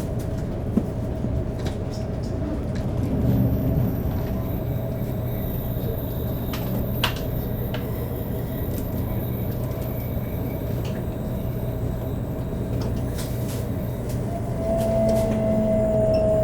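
Shinkansen 500 series train running at speed, a steady rumble with a constant hum. Near the end the whine of its Toshiba GTO-VVVF inverter rises in level and drifts slightly downward in pitch as the train begins slowing.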